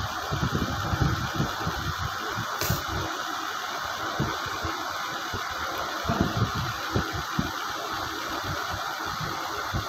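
Steady mechanical hum and hiss, like a fan or distant engine, with irregular low bumps in the first second or so and again past the middle, and one brief click just under three seconds in.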